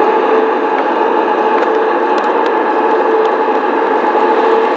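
A 1:22.5-scale garden-railway model train running on its track: a steady rushing rolling noise with a steady whine through it and a few small clicks.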